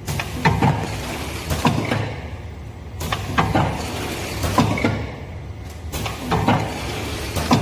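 Two-lane automatic four-side seal packaging machine running, its cycle of knocks and clacks repeating about every second and a half over a steady mechanical noise.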